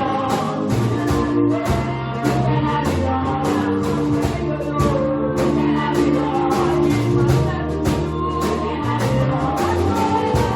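Church choir and band music: a song with a steady drum beat under sustained bass and keyboard or guitar lines, with singing in the mix.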